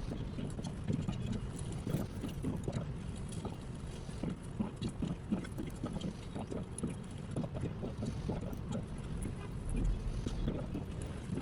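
Typing on a mechanical keyboard with lubed Glorious Panda tactile switches in a brass plate and GMK keycaps: a fast, irregular stream of deep key clacks.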